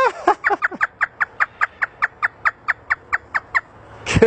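African grey parrot imitating a hysterical human laugh: a rapid, even string of short 'ha' notes, about six a second, that stops about three and a half seconds in.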